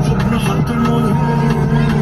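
Music playing: a song with held low notes and shifting melodic lines.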